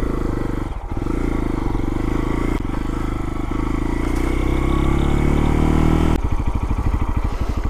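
Lifan KPX250's single-cylinder four-stroke engine running at a steady throttle, with a brief dip about a second in and a slight rise in pitch through the middle. Near the end it drops back to a slower, pulsing putter, off the throttle.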